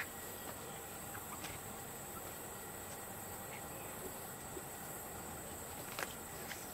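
Faint, steady high-pitched drone of insects, with a few light clicks, the clearest about six seconds in.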